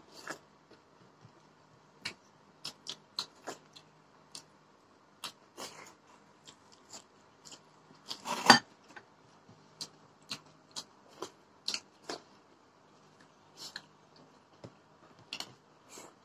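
Mukbang eating sounds: many short wet clicks and smacks of mouths chewing rice and fish eaten by hand, with fingers on the plates. One louder noise about eight and a half seconds in stands out above the rest.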